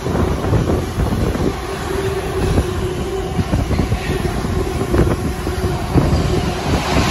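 Container freight train wagons rolling past at speed, a continuous rumble broken by irregular knocks and clatters from the wheels on the rails.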